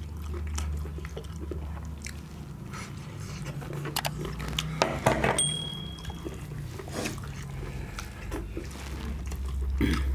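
People chewing and eating chicken leg curry with rice, with scattered short clicks and mouth sounds. A steady low hum runs underneath.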